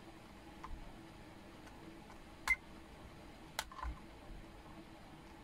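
UNI-T digital multimeter in buzzer (continuity) mode giving one short, high beep about two and a half seconds in, as its probes are held across the bridge rectifier to check for a short. A sharp click follows about a second later.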